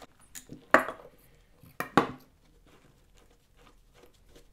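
A few sharp metal clinks and knocks as a hand tool and steel exhaust parts are handled: one loud clink a little under a second in, and two more close together about two seconds in, then faint ticks.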